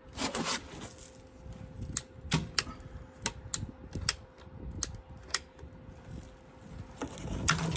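Sprinkler pipe being cut: a series of sharp, irregular clicks and snaps.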